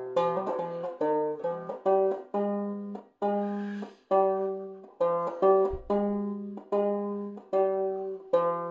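Banjo playing a slow single-note melody, each plucked note ringing out before the next, in open G-minor tuning (standard G with the second string lowered to B flat).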